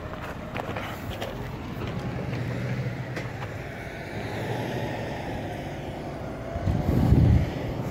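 FedEx box delivery truck's engine running as the truck drives away, over steady traffic hum. A brief, louder low rumble comes near the end.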